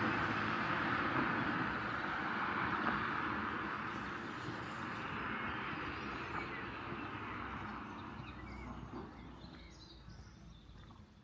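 A vehicle driving away, its engine and tyre noise fading steadily into the distance. Faint bird chirps come through as it dies away.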